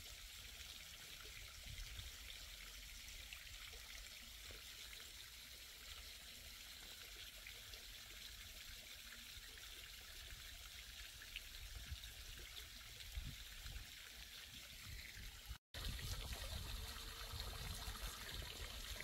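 Steady trickle of running water, a soft even hiss with a low rumble underneath. The sound drops out for an instant about three-quarters of the way through.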